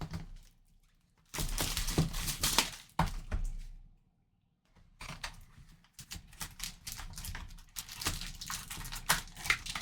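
Plastic shrink wrap crinkling and tearing as it is stripped off a sealed trading-card box. It comes in two spells with a short pause between them.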